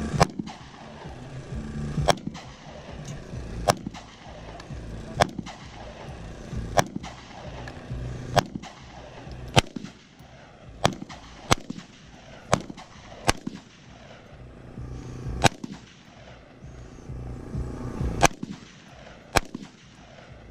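Rifle fired in a steady string of about fifteen single shots, roughly one every second or two, each crack followed by a short echo.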